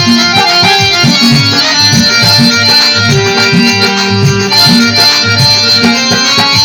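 Instrumental break in a Rajasthani devotional song: a sustained reedy melody, like harmonium or keyboard, over a steady beat of low bass and drum notes, with no singing.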